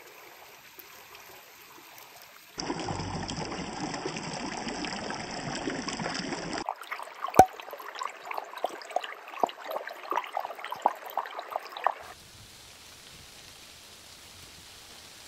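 A shallow stream trickling over rocks. Then a corgi lapping water from it, a rapid run of wet laps about three a second, the loudest one early in the run.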